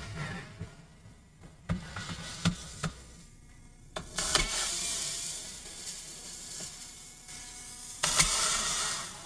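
Small electric screwdriver whirring in two bursts, about four seconds in and again near the end, backing out the Phillips screws of a laptop's plastic bottom cover. Before them come a few sharp clicks of the tool against the case.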